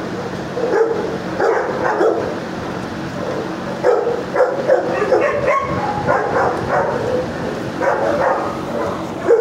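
Dogs in neighbouring shelter kennels barking repeatedly in short, irregular bouts, over a steady background hum.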